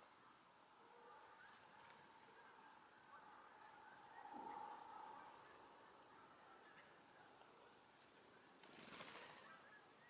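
A few short, high-pitched chirps from small songbirds, the clearest about two seconds in, about seven seconds in and near the end, over a faint steady hum that swells briefly in the middle.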